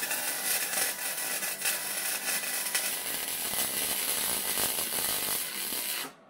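Wire-feed welder arc crackling and sizzling steadily as a bead is laid on steel tube, stopping about six seconds in.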